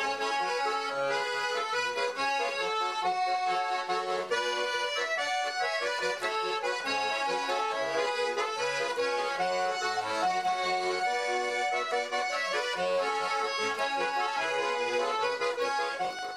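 Accordion music playing a lively traditional-sounding tune over a regular pulsing bass accompaniment; it fades out at the very end.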